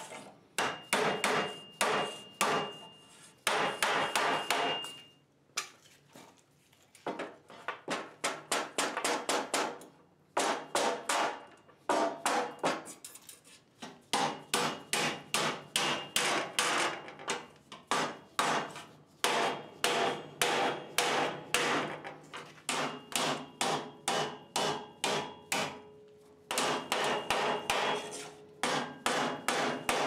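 A hammer driving a wooden block along the edge of 14-gauge sheet steel clamped under angle iron, bending a flange over by hand. Runs of quick blows, about three or four a second, are broken by short pauses, and the steel rings under them.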